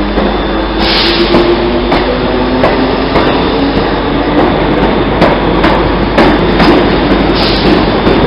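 Running noise inside a moving Class 380 electric train: a steady low hum and rumble, with irregular clicks and knocks from the wheels over the rails. A brief hiss rises about a second in and again near the end.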